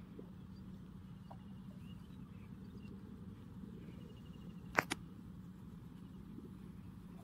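Two sharp knocks close together about five seconds in, a bamboo pole knocking against the small wooden boat, over a low steady background with faint high chirping trills.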